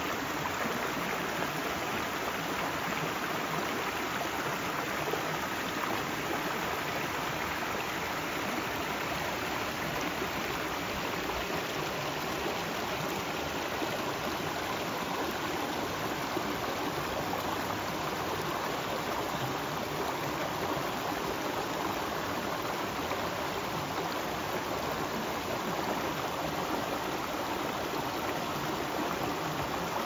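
River water flowing in a steady, even rush.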